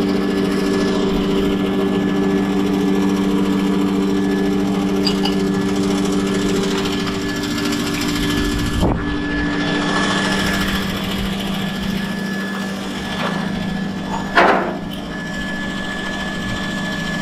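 A motor or small engine running with a steady, even-pitched hum, its upper tones fading about ten seconds in. A short louder sound cuts in about fourteen seconds in.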